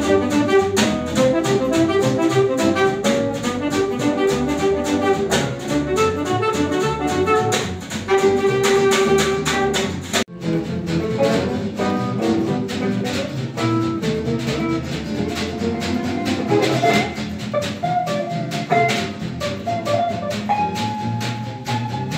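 Instrumental music with a steady beat and brass-like melody notes, briefly cutting out about ten seconds in.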